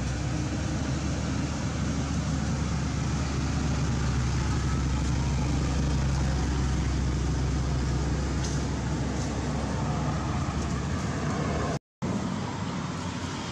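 Steady low rumble with a hiss over it, cutting out for an instant near the end.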